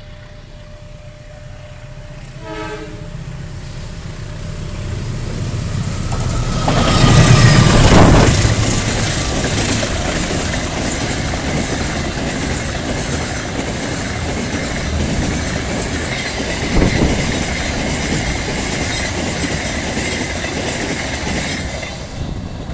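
A CC203 diesel-electric locomotive hauling a container freight train approaches and passes, growing louder to a peak as the locomotive goes by about seven seconds in. The container flat wagons then roll past with a steady rumble of wheels on rails and a steady high whine, one sharp clank partway through, before the sound fades near the end.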